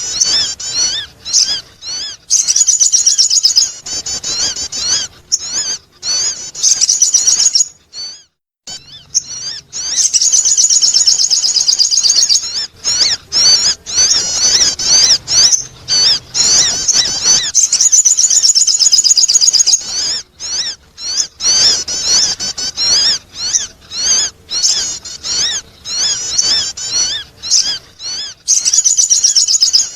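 Sogon bird calls played as a lure sound: rapid, high-pitched, warbling chirps in long unbroken runs, with a short break about eight seconds in.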